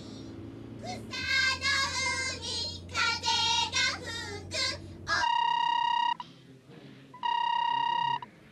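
Children singing together over the low, steady drone of a minibus engine. After about five seconds it cuts off abruptly to a telephone ringing twice, each ring about a second long.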